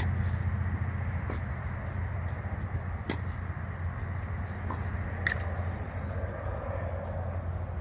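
A tennis racket strikes the ball a few times, sharp hits about two seconds apart, over a steady low rumble.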